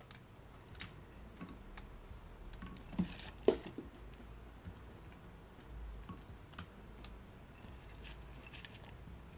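Pieces of cut okra dropped by hand onto fish and vegetables in a glass baking dish, landing with soft scattered taps, the two most distinct about three seconds in.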